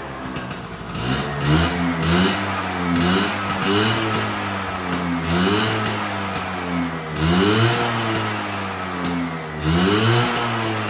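Vespa 100 (V9B1T) scooter's single-cylinder two-stroke engine running on a freshly rebuilt carburetor, with the throttle blipped over and over: short revs that rise quickly and drop back, roughly once a second.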